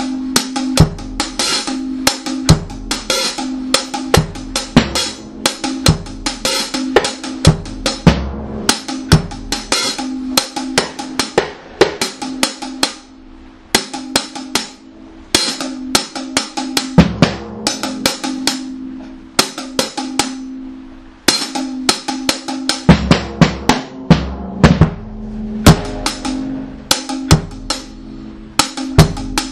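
Reggae one-drop dub instrumental: a drum kit playing a steady rhythm of snare and rimshot strikes with occasional bass-drum hits, over a held low bass tone. The strikes thin out briefly a few times.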